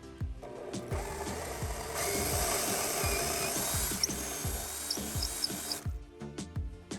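A power tool running for about five seconds, then cutting off suddenly, over background music with a repeating bass beat.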